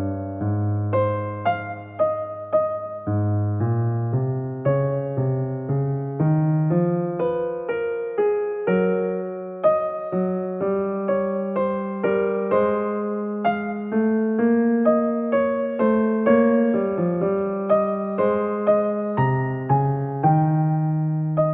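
Calm solo piano music: a slow melody of struck notes, each ringing and fading, over low bass notes that change every second or two.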